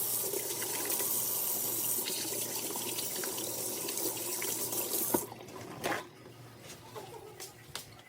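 Water running from a tap into a sink as hands are washed under it; the flow stops about five seconds in, leaving a few faint clicks and handling sounds.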